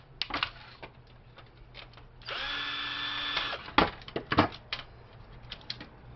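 Cordless drill/driver running for about a second, a steady whine while backing a screw out of a printer's circuit board mount, with clicks and knocks of parts being handled around it.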